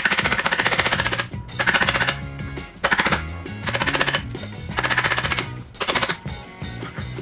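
Background music with a stepping bass line, mixed with repeated bursts of fast, even rattling about a second long.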